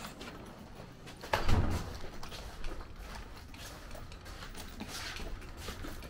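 Footsteps and camera handling noise while walking, a scatter of light knocks and clicks with one louder thump about a second and a half in.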